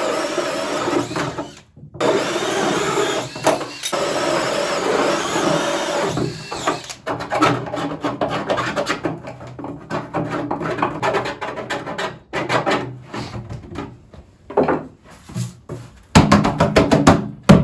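Power drill spinning a hole saw as it cuts a large hole through the wall of a feeder container, the motor running steadily for several seconds with a short stop near two seconds in. After that come irregular scraping and rasping strokes and knocks, with a loud burst of scraping near the end.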